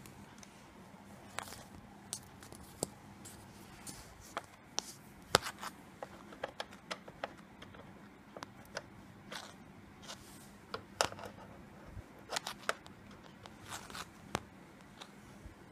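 Paper and packaging being handled while unboxing a keyboard's accessories: irregular crinkles, rustles and sharp little clicks, the loudest about five seconds in, as manuals and cards are shuffled and a bundled cable is picked up.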